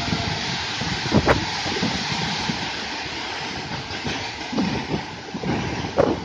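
Wagon tippler machinery and coal wagons at work: a steady mechanical noise with scattered clanks and knocks, a sharp one about a second in and several more near the end.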